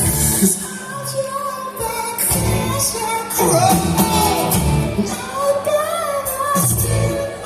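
Live pop-rock band playing with a lead vocal singing drawn-out, gliding lines over the band.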